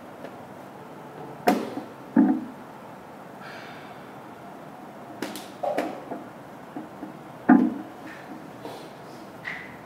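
Wooden chess pieces set down on a wooden board and chess clock buttons pressed during a blitz game: a scattering of sharp wooden knocks and taps, the loudest about a second and a half in, about two seconds in, and about seven and a half seconds in.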